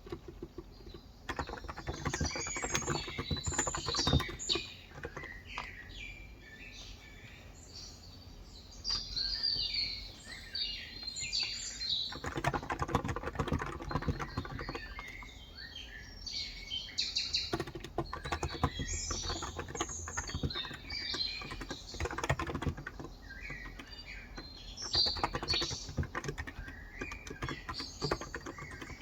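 Typing on a Cox Endeavor electro-capacitive tenkeyless keyboard with 35 g switches, in bursts of rapid keystrokes with short pauses between them. Birds chirp in the background throughout.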